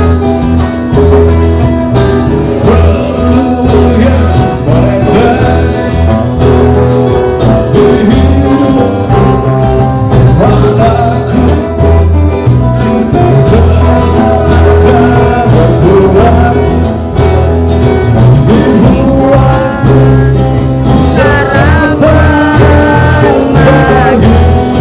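Live acoustic band playing loud over the stage PA: several acoustic guitars strummed with a hand drum, and a man singing into a microphone.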